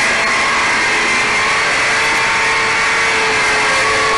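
Compact circular saw with a blade of about four inches running steadily as it cuts through wood paneling, its motor whine shifting slightly in pitch under load.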